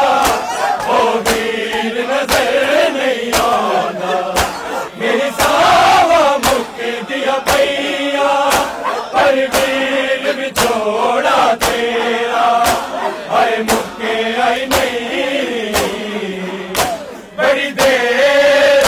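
A crowd of men chanting a Punjabi noha (a Shia lament) together, with the sharp slaps of bare-handed chest-beating (matam) in a steady beat.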